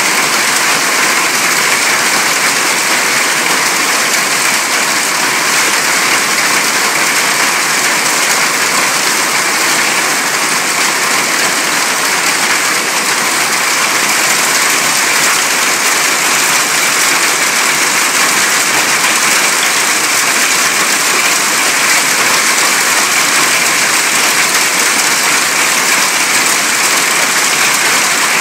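Hailstorm: hail and heavy rain pelting down in a loud, steady, unbroken hiss, heard from under a veranda roof.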